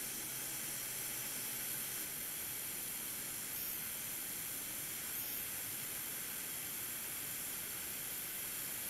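Steady airflow hiss of a hot air rework station blowing on a small surface-mount capacitor to desolder it from a laptop motherboard.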